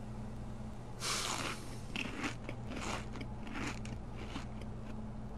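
Crunchy snack being bitten and chewed: a loud crunch about a second in, then a run of short crunching bites, over a steady low hum.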